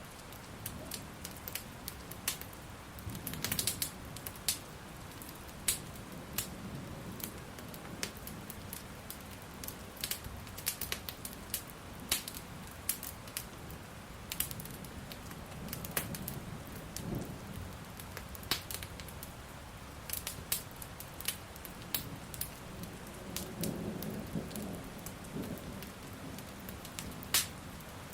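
Wood fire crackling with frequent sharp pops, over the steady hiss of rain. A few brief low rumbles come and go, about three seconds in, in the middle, and near the end.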